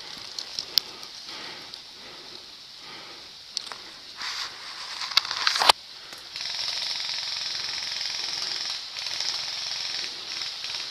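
Footsteps and rustling through dry leaf litter and undergrowth, with twigs snapping and branches brushing past, including one sharp crack a little before halfway. From about halfway on, a steady high hiss runs under the rustling.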